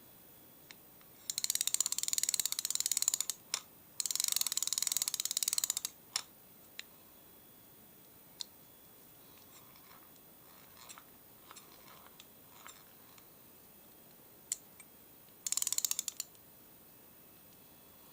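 Intrepid Fisher 7 fixed spool spinning reel being wound: rapid ratchety clicking of its gears and check, in two runs of about two seconds each and a shorter run near the end, with single sharp clicks and light rattles in between.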